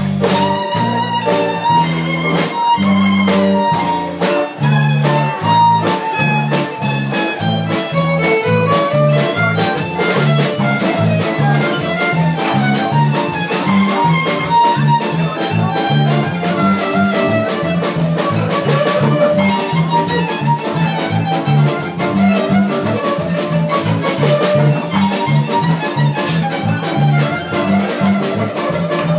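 Live band playing: a violin carries the melody over electric bass guitar and a drum kit keeping a steady beat.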